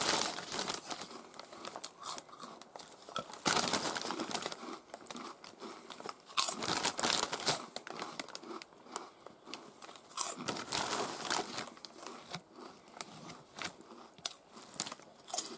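Crunchy snack chips bitten and chewed, in several spells of crunching, with the foil-lined snack bag crinkling in between.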